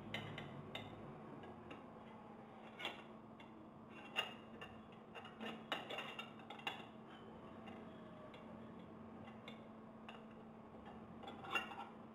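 Stainless steel casing parts of a GEA Hilge CONTRA Bloc centrifugal pump being handled by hand: scattered light metallic clicks and knocks, most of them bunched about halfway through and one more near the end, over a faint steady hum.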